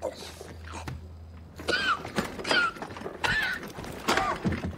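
Repeated high-pitched, wavering whimpering cries from a frightened person, several short sobs in a row. A soft thunk sounds near the start as a mobile phone is set down on a cardboard folder.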